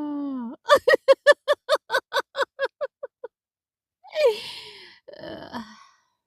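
A long vocalized exhale ends by gliding down in pitch. It is followed by a run of about a dozen short, even pulses of laughter, about five a second, that fade out. Two breathy, sighing exhales follow near the end.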